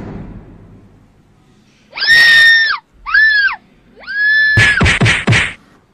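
A dull thud, then three loud, high-pitched screams, each held steady, followed by a quick run of about four sharp whacks, like a comic beating.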